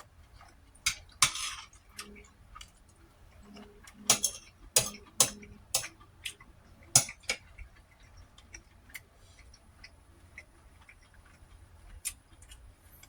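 Irregular sharp clicks and taps, about a dozen spread unevenly, loudest about a second in and about seven seconds in, with a few soft low sounds between them.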